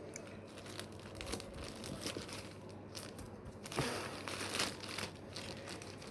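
Parcel packaging crinkling and rustling as it is pulled at and worked open by one hand, with a louder stretch of rustling about four seconds in.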